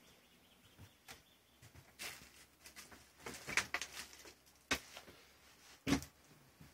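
Wooden cabin doors of a boat being opened and handled: several sharp clicks and knocks, the loudest about halfway through and near the end.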